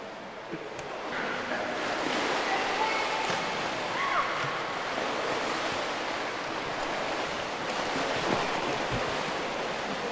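Water splashing and churning steadily in an indoor pool as several swimmers move about, building up about a second in.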